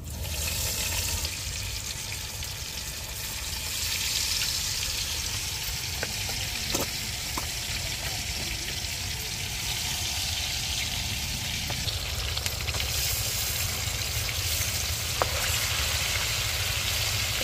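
Masala-marinated chicken pieces frying in hot oil: a steady sizzle, with a few light clicks scattered through it.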